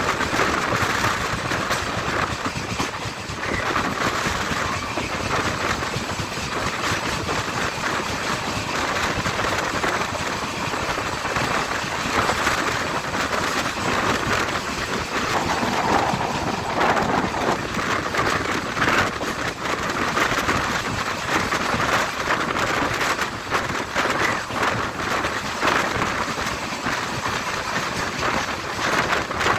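A moving passenger train running at speed alongside a loaded goods train of open steel wagons that passes close by on the next track: a steady rush of running noise full of rapid wheel clatter and rattling.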